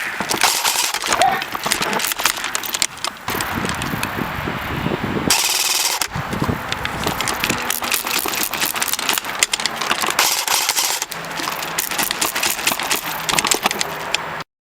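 Airsoft AK74 replica firing rapid bursts, a dense clatter of quick shots. The sound cuts off suddenly near the end.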